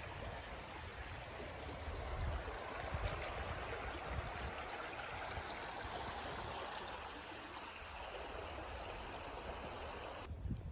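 Steady rushing, splashing noise of moving water, with no distinct strokes or tones. It cuts off abruptly near the end.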